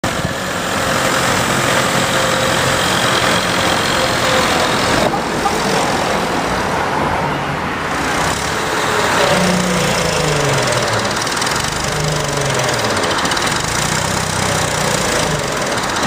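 Cartoon engine sound effect for a backhoe loader, running steadily with a rough, noisy tone; its low pitch wavers up and down past the middle.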